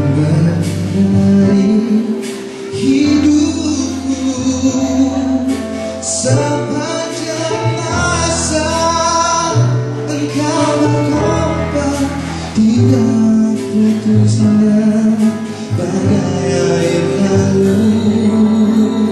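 Live music: a man singing a song in Malay into a handheld microphone over instrumental accompaniment.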